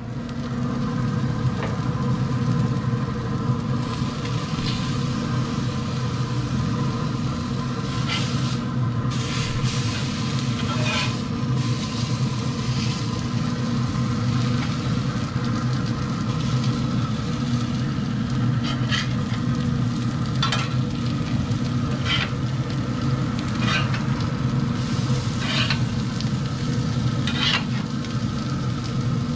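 Seafood patties and shrimp sizzling on the hot grate of a Pit Boss pellet grill, over a steady low hum. A metal spatula clicks and scrapes against the grate now and then as the food is turned.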